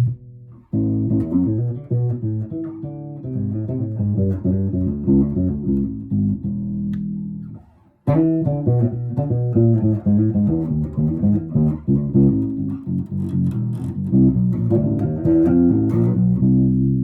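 1968 Gibson EB-2D semi-hollow electric bass being played, a run of plucked notes and bass lines. The playing stops briefly about eight seconds in and then resumes.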